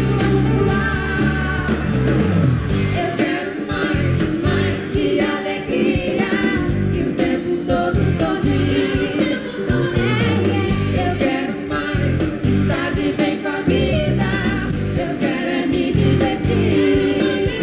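Live pop music from a band on stage, with sung vocals over a steady drum beat.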